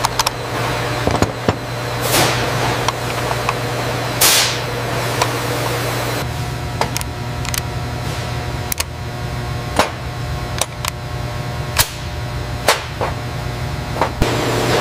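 Workshop ambience: a steady machine hum with irregular sharp clicks and knocks of hand tools on a rifle at a workbench, and two short hissing whooshes about two and four seconds in.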